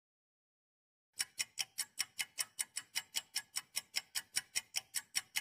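Clock-ticking sound effect used as a quiz countdown, a quick, even tick about five times a second, starting about a second in.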